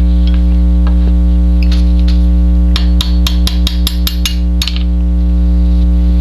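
A run of about ten quick metal taps over a couple of seconds: a pin punch being tapped to drive out the extractor retaining pin of a Sig Sauer 1911. A loud steady electrical hum runs underneath.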